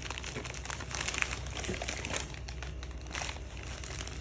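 Gift packaging being handled and crinkled: irregular crackling and rustling of wrapping paper or plastic as a present is unwrapped.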